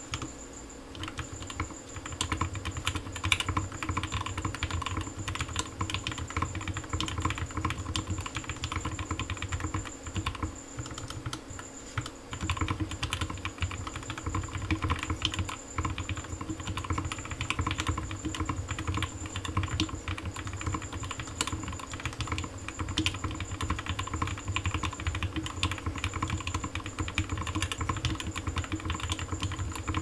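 Bauer 2 custom mechanical keyboard, with tuned Turquoise Tealios linear switches on an aluminum plate, ePBT keycaps and no foam, typed on quickly and continuously. It is a dense run of key strokes with a deep sound profile, with a brief pause about twelve seconds in.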